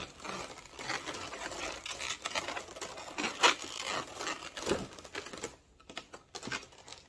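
Latex twisting balloons being handled and bound into a bouquet, rubbing and rustling against each other with irregular small clicks. Scissors cut the balloon tail near the end.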